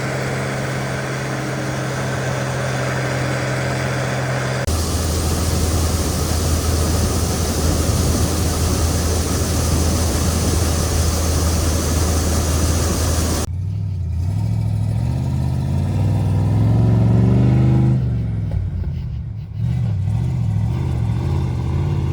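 Farm harvest machinery engines running steadily, in three cut-together stretches with a different engine hum in each. In the last stretch an engine revs up, then drops back and runs unevenly.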